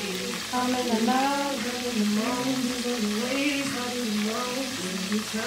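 Codfish frying in hot oil in a pot, a steady sizzle, with a slow melody that bends up and down running over it.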